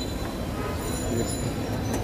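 Steady low rumble of street noise mixed with the hiss of oil bubbling in a deep fryer of spiral-cut potatoes, with one sharp click near the end.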